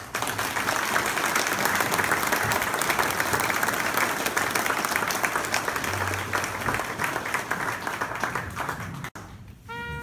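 Audience applauding, a dense steady clatter of clapping hands that thins out in the last seconds. Just before the end, a brass instrument begins playing sustained notes.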